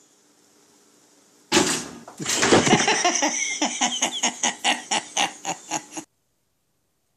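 A toaster pops up with a sudden loud clack, followed by a few seconds of loud, rapid, rhythmic pulses, about four a second, that stop abruptly.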